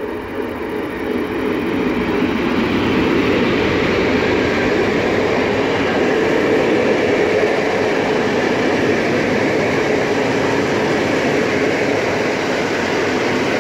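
Polish EP07 electric locomotive passing close by, followed by a string of passenger coaches rolling past with a steady rumble and wheel noise on the rails. It grows louder over the first two seconds as the locomotive draws level, then holds steady as the coaches go by.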